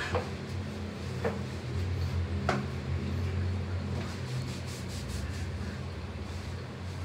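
Towel rubbing as someone dries off. Three light knocks come in the first few seconds, over a steady low hum.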